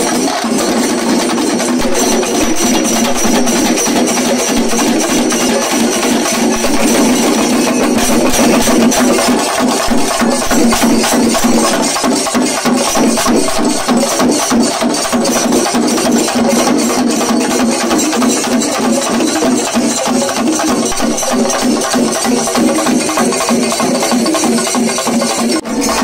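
Chenda melam: a large ensemble of Kerala chenda drums beaten with sticks, a dense, rapid, continuous drumming rhythm.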